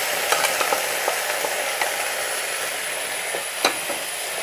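Onion and spice masala in oil sizzling steadily in a pan as cooked red cow beans are scraped in from a pressure cooker with a wooden spatula. Several light taps of the spatula are heard, with one louder knock a little after three seconds.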